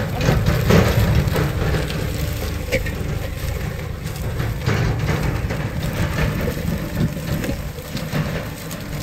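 Ox-drawn disc harrow crunching and crackling through dry crop stubble and soil, its steel discs rattling, over a steady low engine rumble.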